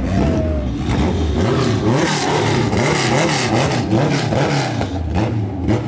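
Vehicle engine revving, its pitch repeatedly rising and falling.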